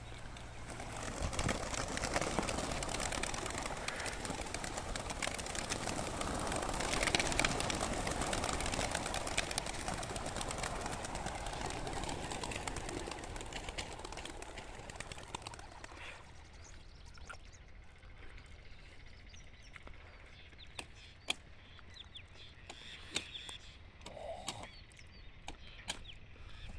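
A flock of racing pigeons in flight, a dense rush of many flapping wings that swells to its loudest about seven seconds in and dies away after about sixteen seconds. It leaves a quiet stretch with scattered small clicks.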